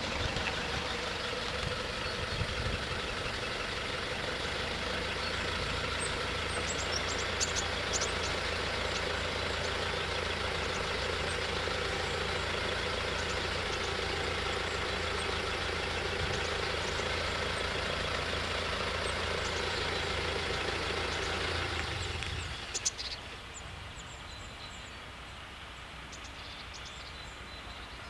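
An engine idling steadily, which cuts off abruptly about 22 seconds in, followed by a single click.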